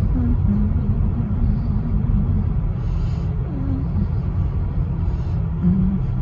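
Steady low rumble of a car's engine and road noise, heard from inside the cabin as the car creeps along.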